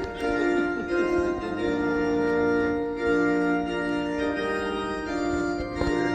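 Organ music playing slow, sustained chords that change every second or so: a wedding processional for the bride's entrance.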